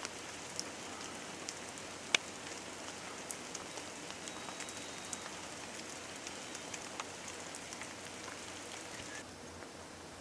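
Light rain pattering on forest foliage: a steady hiss with scattered sharp drips, the sharpest about two seconds in. The hiss drops a little shortly before the end.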